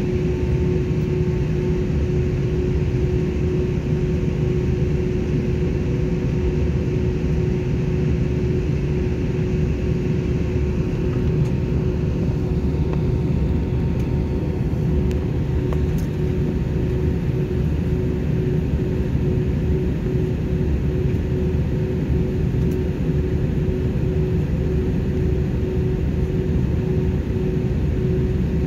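Steady cabin noise inside an Airbus A320 on the ground: a low rumble with one steady hum.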